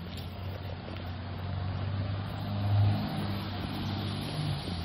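Low hum of a motor vehicle, swelling to a peak about three seconds in, over a steady hiss.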